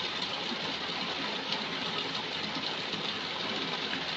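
Steady, even background noise with a machine-like rumble and no distinct events.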